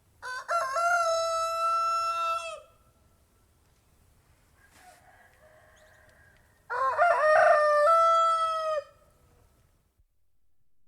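Domestic rooster crowing twice, each crow a few seconds long and ending on a long held note, the two several seconds apart.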